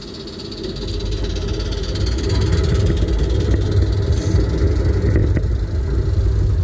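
A miniature railway train with ride-on passenger carriages running past close by, its wheels on the rails making a low rumble that builds over the first two seconds and then holds steady as the carriages go by.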